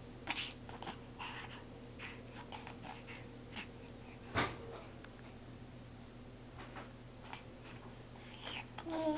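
Faint baby breathing and mouth noises with soft fabric rustling, broken by small clicks; one sharp click about four and a half seconds in, and a short vocal sound near the end.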